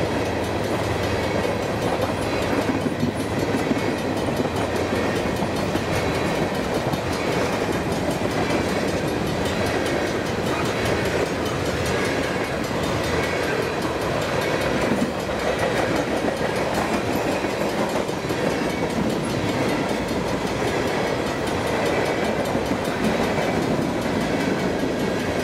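Freight train tank cars rolling past steadily, their steel wheels running on the rails with a continuous, even noise.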